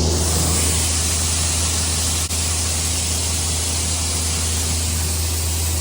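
Combine harvester running steadily while harvesting: a constant low hum under a broad, even hiss.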